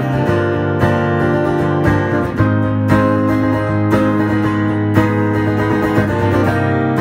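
Acoustic guitar strummed solo, chords ringing with a sharp accent about once a second.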